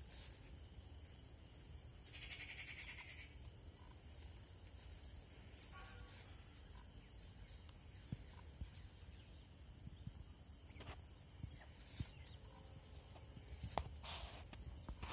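Faint outdoor ambience: a steady low rumble and a steady high hiss, with a brief raspy sound about two seconds in and a few soft clicks later on.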